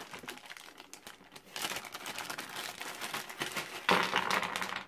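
Plastic packaging crinkling and rustling as parts are handled and pulled out, sparse at first, then continuous from about a second and a half in, and loudest near the end.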